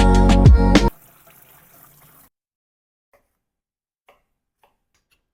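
Background music with a steady beat that cuts off suddenly about a second in, followed by faint hiss and then near silence with a few faint, light clicks.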